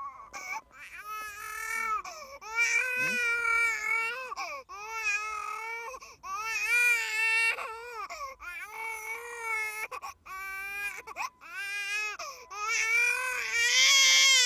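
A 19-week-old baby crying hard in repeated pitched bouts of one to two seconds, each broken by a short pause for breath; the cries grow loudest near the end.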